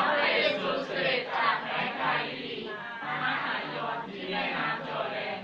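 A congregation reading a Bible passage aloud in unison in Thai, many voices speaking together in a chant-like rhythm.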